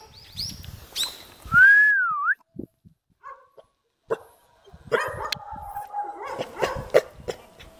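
Jindo dog whining in short high calls. The loudest is a whistle-like call that rises and falls about one and a half seconds in, and a longer held whine comes near the end, with a few light clicks.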